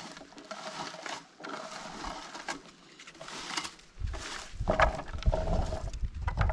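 Rustling and small clicks of hands working through low blueberry bushes while picking berries. From about four seconds in, a low, uneven rumble buffets the microphone.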